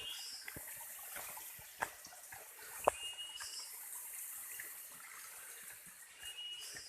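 Footsteps on a forest trail: irregular small crunches and knocks, a sharper knock about three seconds in, over a steady high hiss. Two short high whistles come about three seconds apart.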